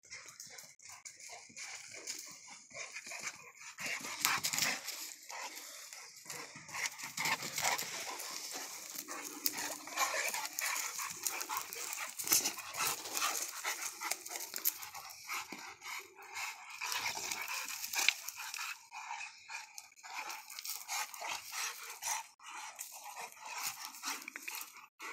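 Two mastiff-type dogs play-fighting in the dirt: irregular scuffling with dog vocal sounds. It picks up about four seconds in.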